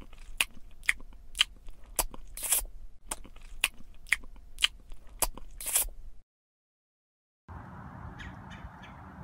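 A run of sharp crunches, roughly two a second, for about six seconds; then the sound cuts out abruptly to dead silence, and a faint steady outdoor hiss follows.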